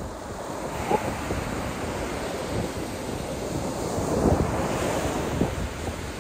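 Small sea waves breaking and washing up a sand beach, the surf swelling to its loudest about four seconds in, with wind buffeting the microphone.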